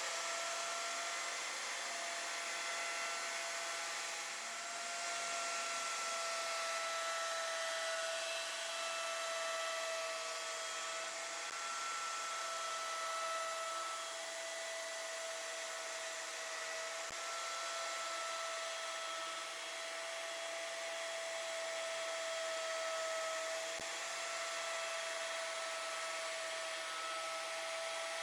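CNC router spindle running at high speed, carving into MDF board: a steady high-pitched whine over a continuous hiss.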